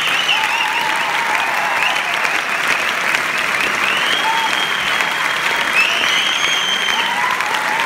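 Cinema audience applauding steadily and densely, welcoming a guest onto the stage.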